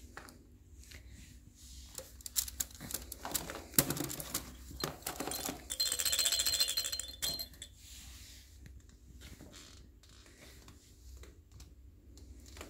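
Dog toys being handled and rummaged through in a wicker basket: a run of clicks and knocks, then about a second and a half of rapid, high rattling, the loudest part, before the handling quietens.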